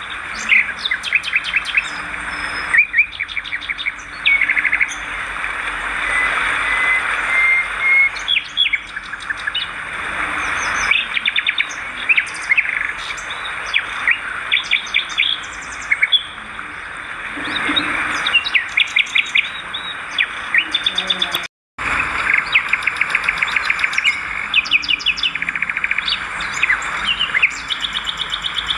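Swiftlet calls: rapid trains of short chirps and twitters, many birds overlapping, over a steady hiss. The sound cuts out for a moment about three-quarters of the way through.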